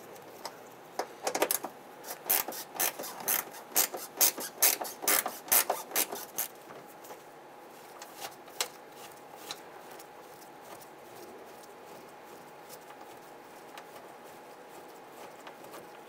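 A 7/16-inch ratcheting gear wrench clicking as it turns out a bracket bolt inside a liftgate, in quick runs of clicks for the first six seconds or so, then only now and then.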